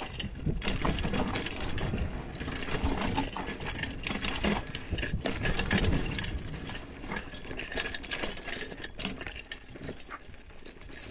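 Hardtail mountain bike rattling and clattering on a rough dirt trail descent: dense rapid clicks and knocks from the bike over a low rumble of tyres on the ground.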